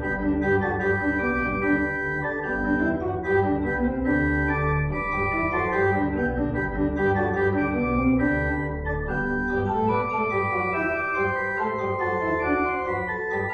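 Church organ playing a slow piece in held, sustained chords that move from one to the next.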